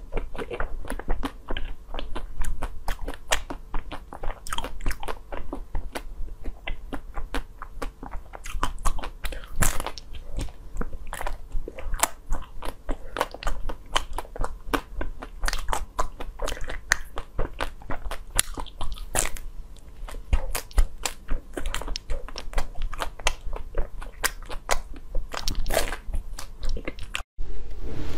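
Biting and chewing of a hard frozen ice bar: many sharp, crunchy bites and crackles at irregular intervals.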